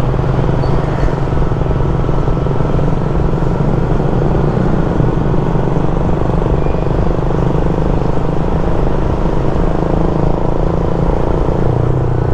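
Steady drone of a vehicle travelling at speed: engine hum mixed with road and wind noise, with no change throughout.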